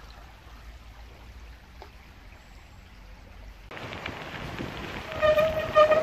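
Quiet outdoor hiss that turns abruptly into a louder rushing noise about two-thirds of the way in. Near the end comes a high, held tone with overtones, lasting about a second.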